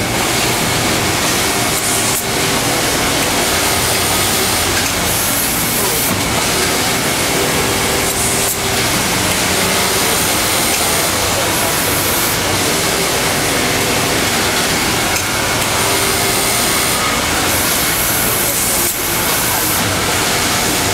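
Industrial sewing machines running on a garment factory floor: a loud, steady hiss, the nearest one a Pegasus EX5100 overlock machine sewing in short runs, so the hiss swells and drops every few seconds.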